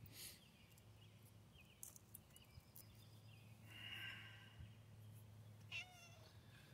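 Near silence with a faint steady hum, a soft hiss about four seconds in, and one brief, faint animal call just before the end.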